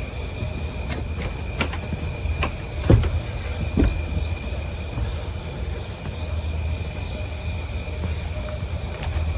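Outdoor ambience picked up by a Ring doorbell camera's microphone: a steady high-pitched drone over a low rumble, with a few short knocks, the loudest about three seconds in.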